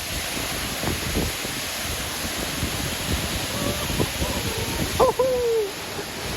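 Steady rush of a waterfall. A person's voice calls out a few times in the second half, the loudest a short shout falling in pitch about five seconds in.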